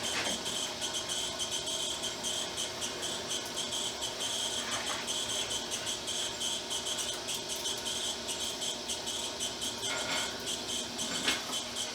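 Motorized Stripmeister wire stripper running steadily with a high, fluttering buzz as it feeds insulated copper wire through and slits the insulation off, with a short click near the end.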